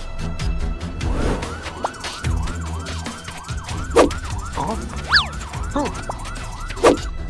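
Cartoon police car siren in a fast yelp, rising and falling about four times a second, over background music. A few short falling whistle-like effects come in over the second half.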